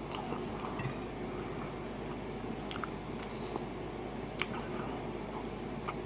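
A person chewing a mouthful of chili and rice, wet and close up, with a few light clicks scattered through.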